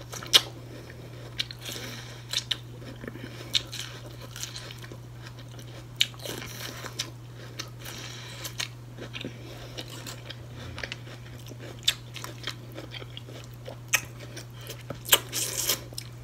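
Biting into and chewing corn on the cob, with irregular sharp clicks from the bites. A steady low hum runs underneath.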